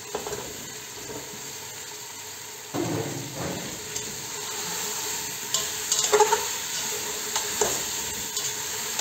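Cauliflower and potato pieces sizzling as they go into hot oil and masala in a pressure cooker pot. A metal slotted spatula then stirs them, scraping and clinking against the pot's metal side several times.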